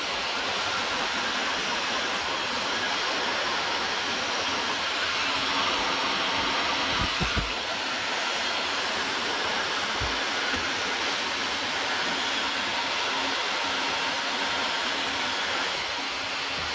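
Heat gun blowing steadily while it shrinks 3:1 thin-wall heat shrink tubing onto a six-pin DEUTSCH DT connector, with a couple of low knocks about seven and ten seconds in.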